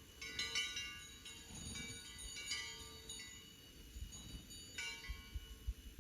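Small bells jingling faintly in short irregular bursts, four or five times.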